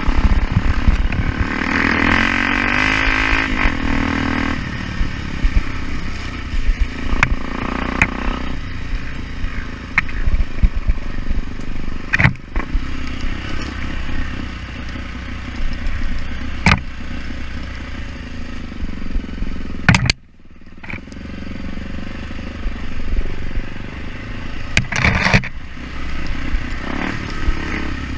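Off-road motorcycle engine running and revving, loudest and highest in the first few seconds, with scattered knocks and clatter. The sound drops away sharply for a moment about twenty seconds in.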